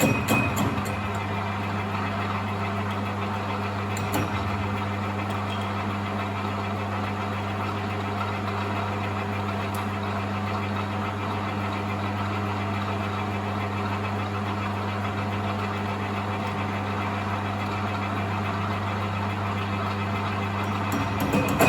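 Metal lathe running steadily, its motor giving an even low hum.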